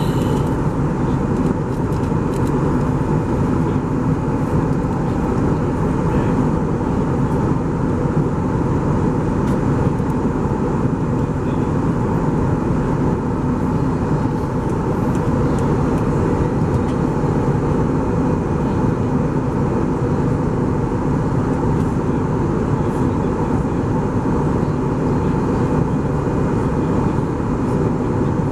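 Steady cabin noise inside an Airbus A320 in flight: an even, unbroken rush of engine and airflow noise with a few faint steady tones.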